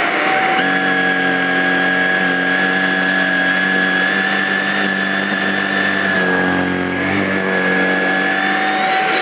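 Shark Rocket Duo Clean (HV380) corded stick vacuum running on carpet with a steady high motor whine. About half a second in, a lower hum joins as the floorhead goes to work on a pile of rolled oats, sucking it up.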